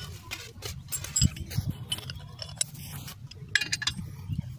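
Metal clinks and scrapes of a socket wrench on clutch pressure plate bolts as they are tightened in stages, a little at a time. The clicks are irregular, with a quicker run of them about three and a half seconds in.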